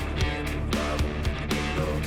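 Background music with a steady beat of about four strokes a second and guitar among the instruments.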